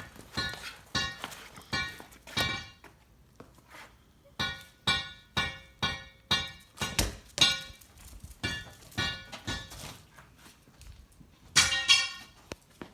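A dog's squeaky toy squeaked over and over: many short, steady-pitched squeaks in irregular runs, with a couple of brief pauses, as the dog bites down on it.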